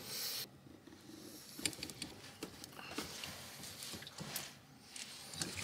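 Handling noise from a brass push-fit ball valve and PEX pipe: a brief rustle, then scattered light clicks and rubbing as hands grip and work the valve.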